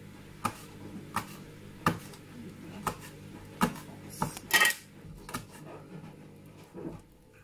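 Kitchen knife slicing green chilies on a plastic cutting board: sharp knocks of the blade hitting the board, about one cut every three-quarters of a second, with one longer, louder noise about halfway through.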